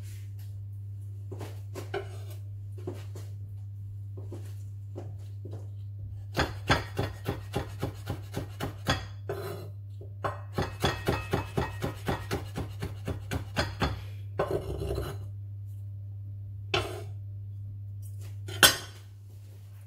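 Kitchen knife chopping on a wooden cutting board: two runs of quick, even knocks, about three or four a second, with a few scattered knocks around them and one sharper, louder knock near the end. A steady low hum runs underneath.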